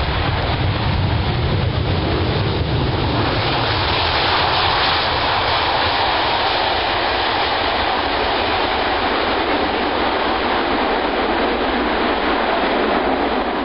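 Loud, steady roar of a jet aircraft's engines, strongest low down at first and turning to a higher rushing sound about four seconds in.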